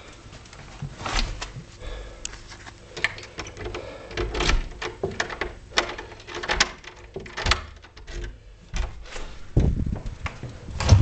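A door being unlocked and opened: a series of clicks and rattles from a key in a cylinder lock and a metal lever handle, with glove and clothing rustle. Heavier thumps near the end as the door swings open.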